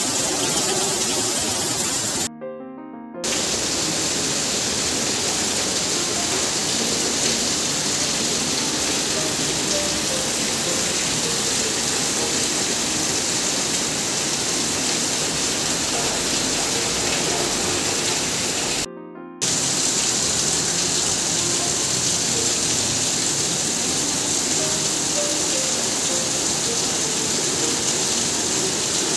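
Heavy rain pouring steadily, a dense hiss, with soft background music faintly under it. The sound cuts out briefly twice, about two seconds in and again about nineteen seconds in.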